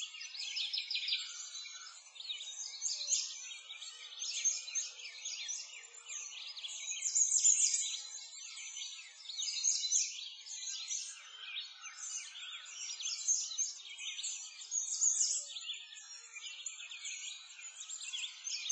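A dense chorus of many small birds chirping and singing, with overlapping high chirps and no lull.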